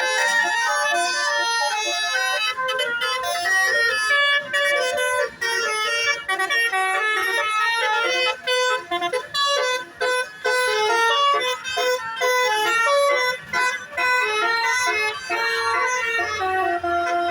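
Telolet basuri multi-tone horn playing a fast melody of bright, brassy horn notes that step rapidly from pitch to pitch, with short breaks between phrases.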